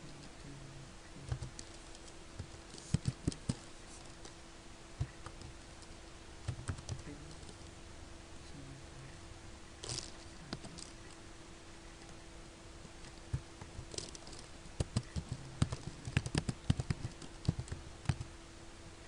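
Typing on a computer keyboard in two bursts of quick keystrokes, with only a few scattered clicks in the pause of several seconds between them. A faint steady hum runs underneath.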